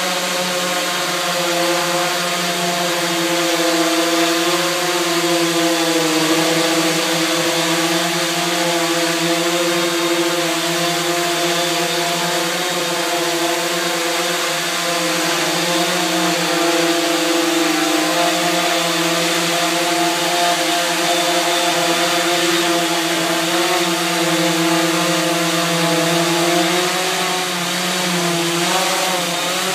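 Quadcopter with caged propellers hovering, its four motors and propellers giving a steady, many-toned buzzing drone. The pitch wavers a little near the end as it adjusts its hover.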